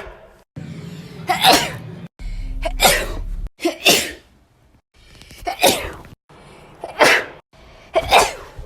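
A series of about six human sneezes in quick succession, each a short, loud blast. The background hum cuts in and out abruptly between them, as separate recordings spliced together.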